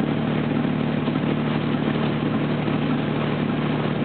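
Steady running of the boat M/S Grytøy's diesel engine, heard on board as an even, unchanging low hum while the vessel moves slowly.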